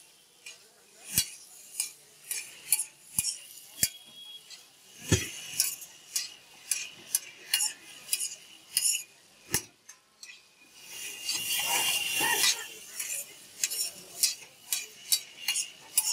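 Metal spatulas clacking and scraping on a large flat pan as pasta is stir-fried, in quick irregular strikes. About eleven seconds in there is a louder, continuous stretch of scraping that lasts a couple of seconds.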